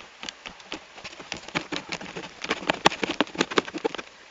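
Heavy raindrops striking a hard surface close to the microphone: a fast, irregular run of sharp taps that grows denser and louder about a second in, then thins out near the end.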